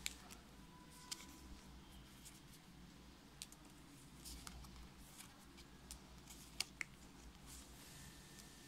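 Sticker flakes and their clear plastic bag being handled: a few faint, scattered clicks and rustles over near silence.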